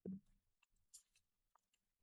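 Near silence: a short low sound at the very start, then a few faint clicks.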